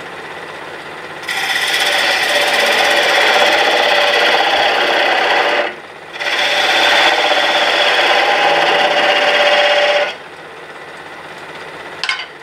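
Wood lathe running, with a hand-held turning tool cutting into the spinning wood blank to square its end: two long rasping cuts of about four seconds each, with a short break between them.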